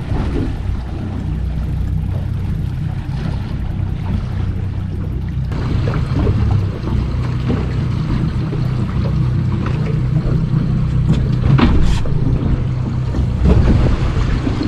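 Boat engine running steadily, with wind on the microphone and water noise over it, and one sharp knock about twelve seconds in.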